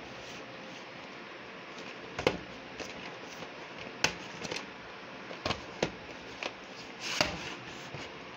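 Plastic VHS cassettes and cases being handled: a scattering of short, sharp clicks and knocks as the tapes are picked up and moved. The first is about two seconds in.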